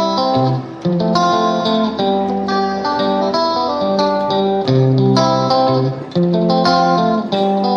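Background music led by a plucked guitar, notes picked in a quick, even rhythm.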